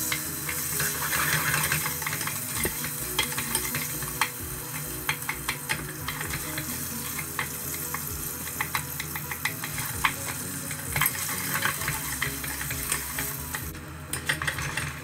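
Butter sizzling in a stainless steel pot with unpopped popcorn kernels as they are stirred with wooden sticks, with frequent sharp clicks and scrapes of wood and kernels against the pot. The sizzling drops away about a second before the end.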